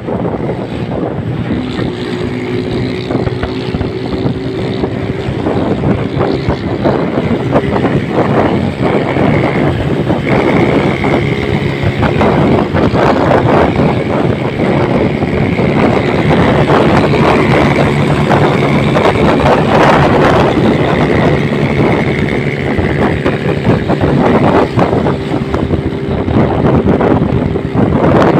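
Motorcycle rickshaw engine running steadily at speed, with wind buffeting the microphone.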